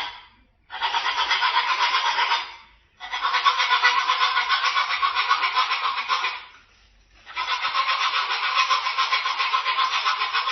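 Cockatoo making a rapid, pulsing buzzy sound in three long bouts with short pauses between them.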